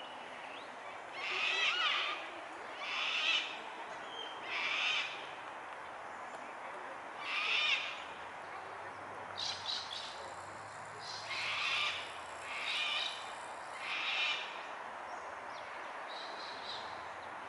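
A bird calling repeatedly: eight or so short calls, each under a second, spaced one to three seconds apart, over a steady background hiss.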